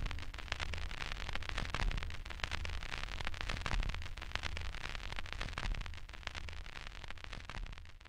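Vinyl record crackle and surface noise, dense clicks and pops over a low rumble, slowly fading out.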